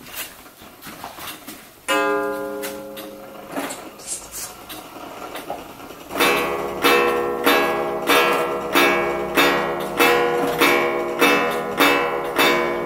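Antique Black Forest wall clock striking the hour on its gong. A single ringing stroke comes about two seconds in, then a run of about a dozen strokes from about six seconds, roughly one and a half a second, each of the same pitch and ringing out.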